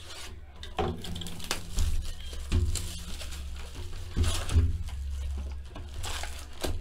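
Plastic shrink wrap being torn off a cardboard box of trading cards and the box lid opened, with the card packs inside rustling: irregular crinkles and crackles throughout.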